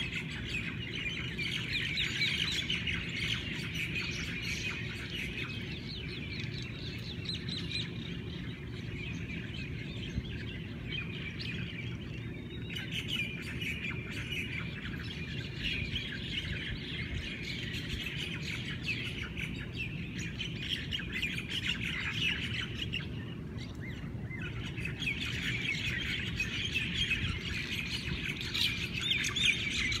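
Dawn chorus of many birds singing at once, a dense, unbroken twittering of chirps with a few squawks mixed in, over a low steady background rumble.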